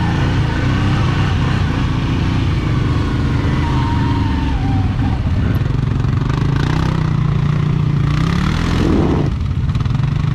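CFMOTO CFORCE ATV engine running under the rider at low trail speed, holding a steady note, with a short rise in revs about eight seconds in before it settles back.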